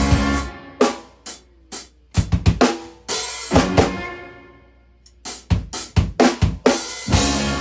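Live instrumental rock band playing, with the drum kit loudest. Stop-start accented hits ring out and fade, there is a brief gap just before the halfway point, and then a quick drum fill with cymbals drives back in.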